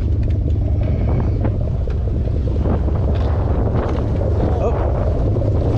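Wind buffeting the microphone on the open deck of a boat at sea, over a steady low rumble, with faint voices in the background.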